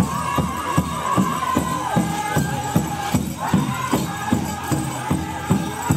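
Pow-wow drum group: a large drum struck in a steady beat, about two and a half strokes a second, under high singing that holds long notes.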